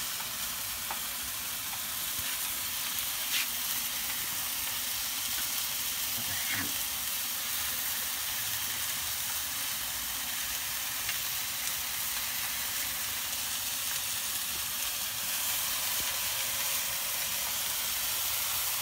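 French fries deep-frying in a large pot of bubbling oil, with beef patties and onions frying in a pan beside them: a steady, even sizzle.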